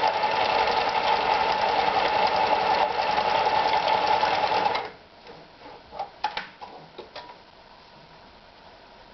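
Privileg Super Automatik TopStar 796 sewing machine running steadily at speed, then stopping abruptly about halfway through, followed by a few light clicks.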